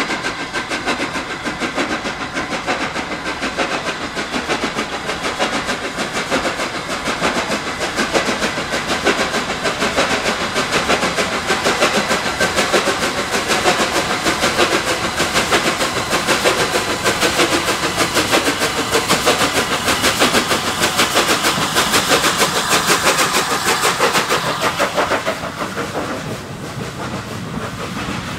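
Steam locomotive 60103 Flying Scotsman, a three-cylinder Gresley A3 Pacific, passing with its exhaust beating rapidly and growing louder. Near the end the exhaust drops away, leaving the coaches rolling by.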